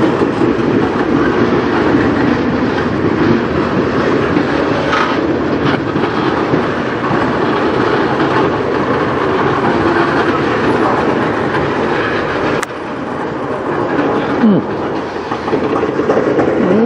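Railroad tank cars of a freight train rolling past, steel wheels clacking over the rail joints in a steady run. The level drops suddenly about three-quarters of the way through, then builds again.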